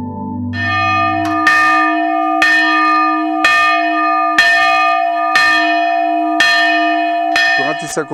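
Church bell hung in a metal frame, struck about once a second. Each stroke rings on into the next.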